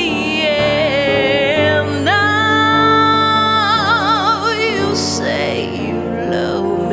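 Woman singing a slow torch-song ballad over piano accompaniment, holding a long note from about two seconds in whose vibrato grows wider before she releases it.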